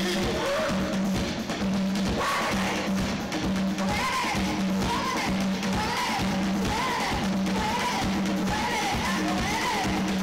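Zimbabwean guitar band playing live: a drum-kit beat under a pulsing low note, with a short rising-and-falling melodic figure repeating about once a second.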